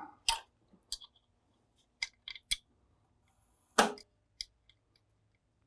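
Scattered sharp metal clicks and clacks, about seven in all with the loudest a little before four seconds in: the safety latch on a Linotype's transfer slide being fitted back on by hand.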